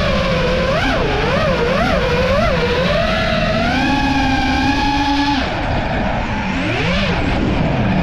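FPV freestyle quadcopter's brushless motors and propellers whining, heard from the quad's own onboard camera. The pitch jumps up and down with quick throttle blips, holds high for a couple of seconds, then drops sharply about five and a half seconds in as the throttle comes off. It swells and falls once more and is climbing again near the end.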